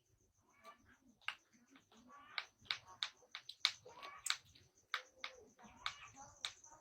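Faint, broken-up voices mixed with many sharp clicks and taps.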